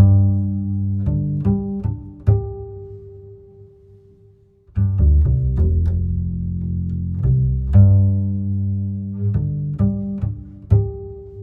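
Bass-heavy music played through a sound system's amplifier and speakers: deep bass notes under short plucked-sounding notes. It dies away about four seconds in, starts again about a second later, and fades near the end.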